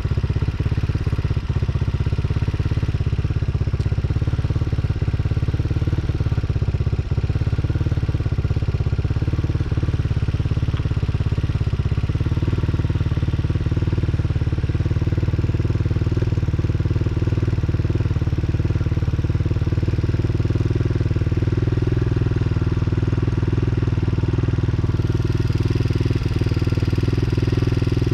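Tao Tao TBR7 dirt bike's small single-cylinder four-stroke engine running steadily at low speed, its note shifting slightly a couple of times.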